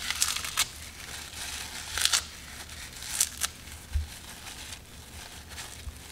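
Crisp dried seaweed being torn and crumbled by hand, in several short dry crackles, with a dull low bump about four seconds in.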